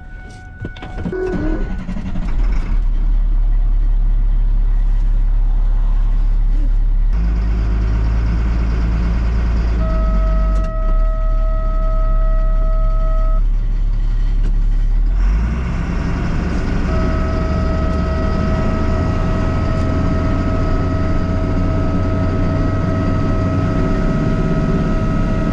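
Ford F-650 boom truck's engine starting and then running steadily as the truck pulls away, heard from inside the cab, its note shifting at about seven and fifteen seconds in. A steady warning tone sounds from about ten seconds in for a few seconds and again from about seventeen seconds on.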